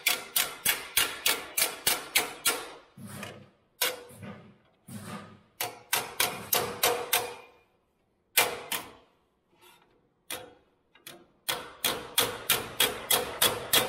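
Hammer striking a steel repair patch panel clamped in a bench vise, forming its edge by hand: runs of sharp metallic taps about four a second, with the sheet ringing. In the middle the blows thin out to a few scattered strikes with short pauses, then quick hammering resumes.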